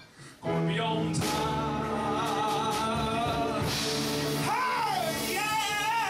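A man sings into a microphone with live piano accompaniment. After a short break about half a second in, the piano chords come back in under held sung notes, and near the end the voice swoops up and down in pitch.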